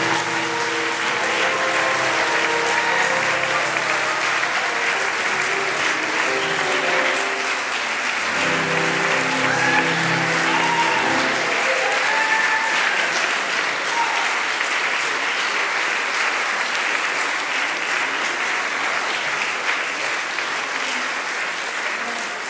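Standing audience applauding steadily, over the last held chords of music, which end about halfway through, leaving the applause alone.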